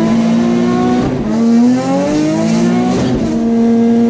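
Turbocharged Nissan 350Z's 3.5-litre V6 accelerating, its pitch climbing and dropping back twice, about a second in and again about three seconds in.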